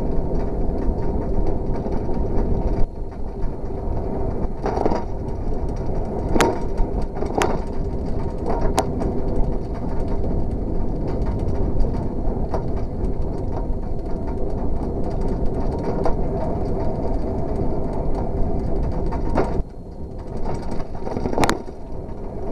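Steady rumbling noise of a bicycle moving over asphalt, tyres rolling and air rushing past, with a few sharp clicks or rattles.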